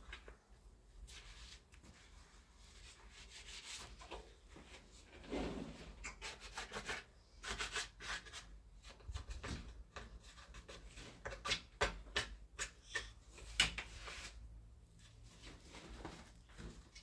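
Irregular rubbing and scraping of wood, with scattered light knocks, busiest in the middle stretch.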